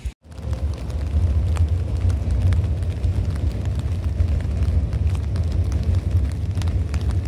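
Wind buffeting the phone's microphone: a loud, uneven low rumble, with light scattered ticks of rain.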